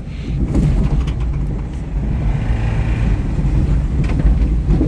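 Car engine running hard under load as the car is driven across a rough field, with a steady low rumble and a few short thumps. The engine has a rod knock and little power.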